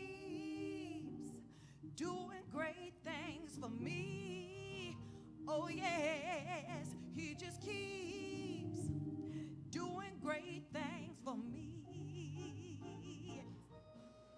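Solo gospel singing with a strong, wide vibrato over held accompaniment chords, in phrases that rise and fall.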